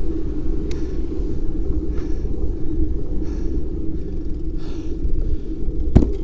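Steady low rumble of wind buffeting a handlebar-mounted action camera's microphone, with road-bike tyres rolling on asphalt. A single sharp knock near the end as the bike jolts.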